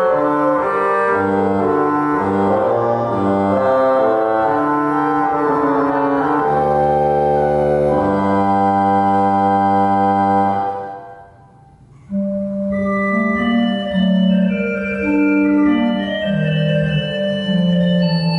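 Organ music played in a reverberant church: a phrase of sustained chords closes on a long held chord, which dies away in the room about eleven seconds in before the organ starts a new phrase a second later.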